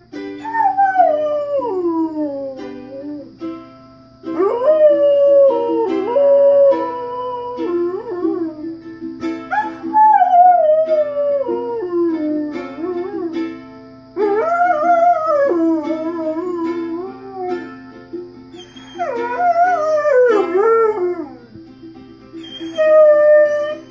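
A yellow Labrador retriever howling along to a strummed ukulele: about six long howls, each sliding down in pitch, over the ukulele's steady chords.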